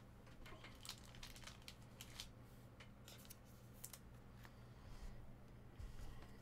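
Faint crisp clicks and crinkling of trading cards and card-pack wrappers being handled, scattered over the first four seconds or so, over a low steady electrical hum.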